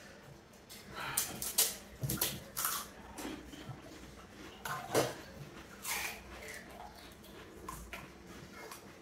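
Scattered short eating noises as pani puris are eaten, separated by quieter stretches; the sharpest comes about five seconds in.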